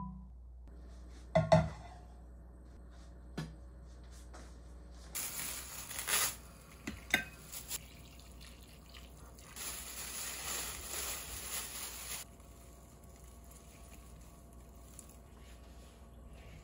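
A few light knocks of kitchenware, then water poured in a thin stream into a pot of red broth, splashing steadily for several seconds.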